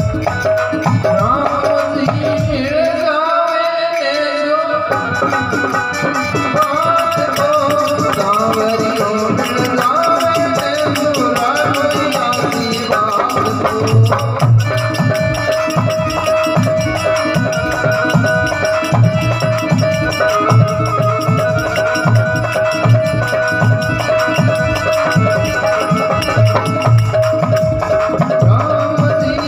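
Live devotional bhajan music: a hand-played dholak drum keeps a steady beat under a wavering melody, with one steady held tone coming in about halfway through.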